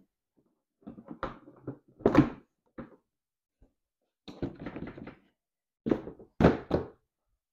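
Molded plastic rear body shell of a Club Car Precedent golf cart being handled and pressed onto the frame by hand: a series of separate knocks and thuds, the loudest about two seconds in, with a short rattle near the middle.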